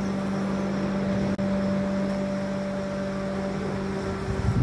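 A steady mechanical hum at one constant low pitch with overtones, over a rushing noise, cutting off suddenly near the end.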